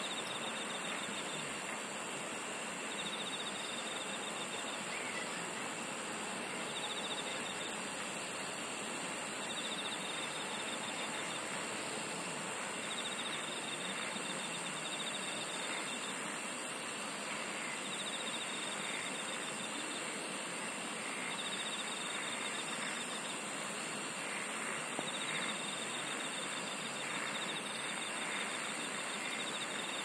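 Field insects singing in chorus: steady high-pitched drones, with short pulsing trills every two to three seconds and a very high trill of about two seconds repeating roughly every seven seconds, over a constant soft hiss.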